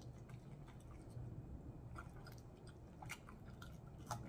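Close-up chewing of crispy fried chicken, faint, with a few small crunches of the breading spread through.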